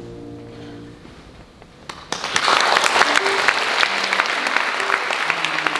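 The held final chord of a piece fades out, and after about a second of quiet an audience breaks into applause, clapping steadily.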